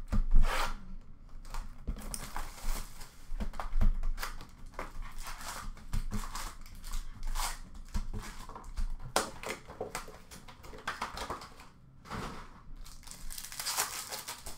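Hands crinkling and tearing open the plastic wrap and foil packs of hockey card boxes: irregular crackling and ripping, with a few louder knocks as the boxes are handled, strongest just at the start and about four seconds in.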